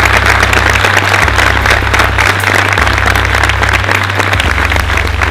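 A large crowd clapping and applauding, a dense steady patter of many hands, with a low bass tone underneath that shifts in steps every second or so.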